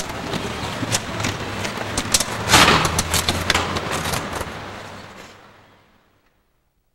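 Outdoor noise on a camcorder microphone: a steady rumble and hiss with scattered sharp clicks and knocks and a louder rush about two and a half seconds in. It fades out to silence around six seconds in.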